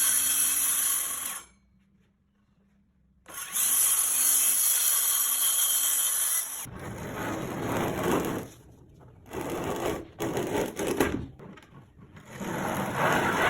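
Circular saw cutting a high-pressure laminate sheet. The saw runs with a steady high whine, drops out for about two seconds, runs again, and over the second half turns to uneven, stop-start bursts of cutting noise.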